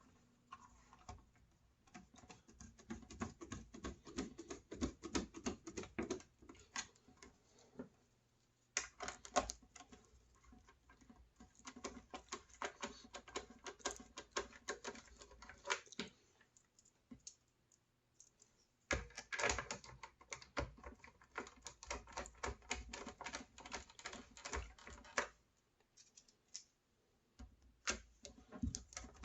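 Screws being driven by hand into the router's housing: rapid clicking in four runs of several seconds, with short pauses between them.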